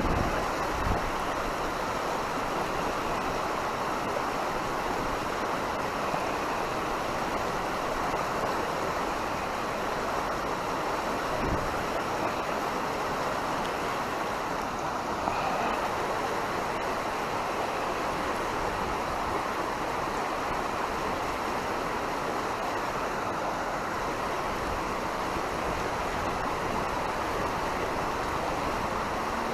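Steady rush of river water flowing over rapids, with a few brief low thumps of wind or handling on the microphone.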